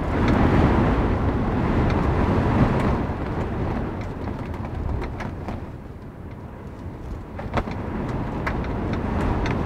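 Rolling thunder: a low rumble swells up at the start, holds for a few seconds and then fades away, with scattered raindrops ticking on the camper.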